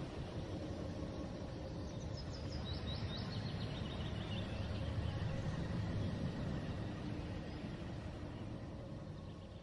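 Steady outdoor ambience, a low rumbling background noise, with a bird giving a short run of quick high chirps about two to four seconds in; it fades out near the end.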